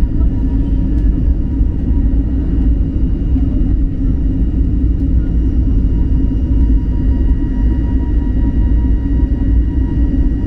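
Cabin noise of an Airbus A321neo in its climb after takeoff: a loud, steady rumble of engines and airflow, with faint steady whining tones above it.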